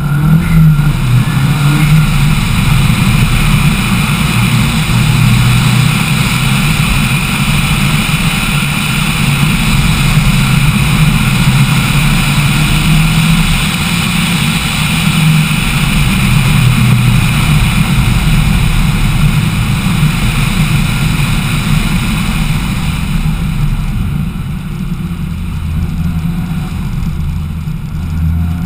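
Lancia Delta Integrale's turbocharged four-cylinder engine running hard, its note rising and falling with speed, with wind rushing over a roof-mounted microphone. The wind noise eases near the end as the car slows.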